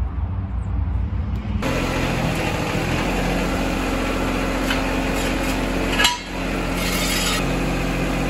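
An engine idling steadily. It cuts in abruptly about a second and a half in, replacing a low hum, and a single brief knock sounds about six seconds in.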